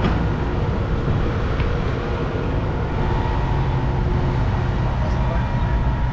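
Steady low rumble with a faint mechanical hum, heard from a Ferris wheel gondola as the wheel turns.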